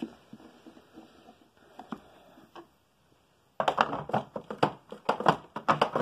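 Plastic clicking and rattling from the dust cup of a Hoover WidePath bagless upright vacuum being handled. A few faint clicks come first, then after a short pause a rapid, louder run of clatter starts about three and a half seconds in.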